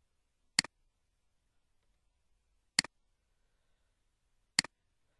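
Three sharp computer mouse clicks about two seconds apart, each a quick press followed at once by a softer release.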